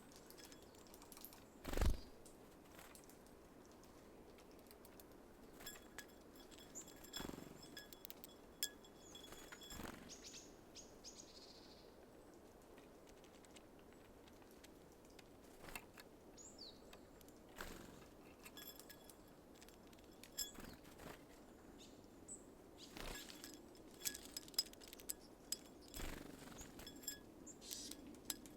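Small birds at a feeder: scattered sharp taps and clicks from birds landing and pecking, the loudest about two seconds in, with a few faint high chirps.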